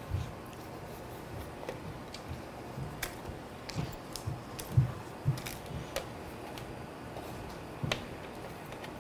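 Scattered soft thuds and light taps as puff pastry squares are set down and pressed onto a parchment-lined metal baking sheet, about a dozen irregular knocks with the loudest a little before the middle.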